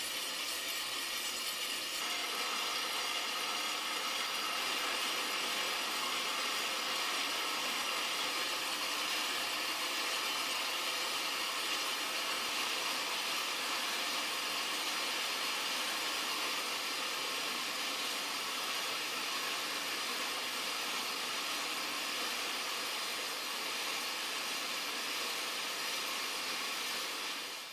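Sound installation of 1944 prepared DC motors, each working a wire against an 8 cm metal disc on black MDF panels. Together the hundreds of discs make a dense, steady rattling hiss of countless tiny metal clicks, mostly high in pitch with little low end.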